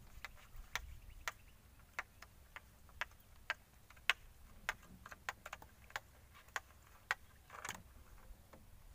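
Scattered sharp clicks and light taps at an irregular pace, roughly one or two a second, with a brief scraping rustle near the end.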